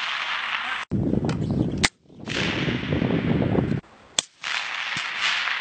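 Two single rifle shots from M38 designated marksman rifles (5.56 mm), sharp cracks about two and four seconds in. Around them is a loud rushing noise that starts and stops abruptly several times.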